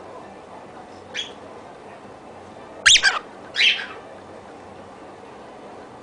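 Cockatiel calling: a short call about a second in, then two loud squawks in quick succession about three seconds in.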